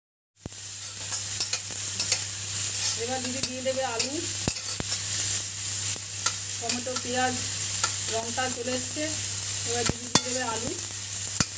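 Chopped onion, tomato and green chilli sizzling in a little oil in a karahi, with a spatula scraping and tapping against the pan as it is stirred.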